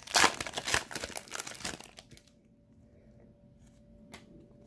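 Upper Deck hockey card pack wrapper being torn open and crinkled, for about two seconds, then quiet apart from a faint click.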